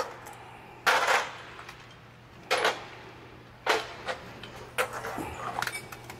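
Pistons with connecting rods from a BMW X3 engine being set down one at a time on an aluminium tray: three sharp metal clanks a second or so apart, then a few lighter clicks near the end.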